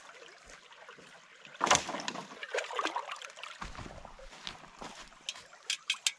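Rustling and handling noises, loudest about a second and a half in, followed by a few short sharp clicks near the end.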